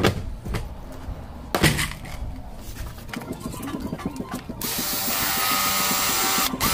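A few clicks and knocks of hand work on the car body, then about four and a half seconds in a power tool starts and runs steadily at a high pitch.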